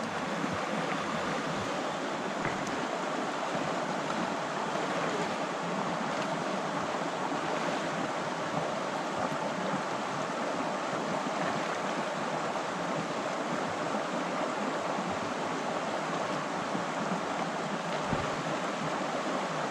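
Shallow river water rushing steadily over rocks and riffles.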